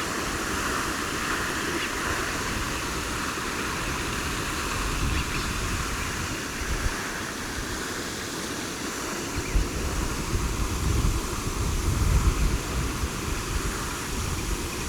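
Steady rushing outdoor noise, with wind gusts buffeting the microphone in uneven low rumbles from a little past halfway.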